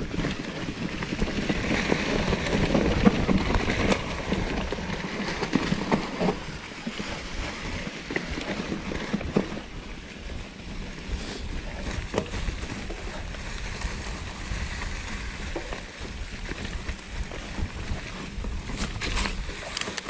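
2016 Norco Torrent plus-tyre hardtail mountain bike being ridden on a trail: a steady rush of tyres and wind on the microphone, with scattered clicks and rattles from the bike. It is louder for the first few seconds, then settles lower.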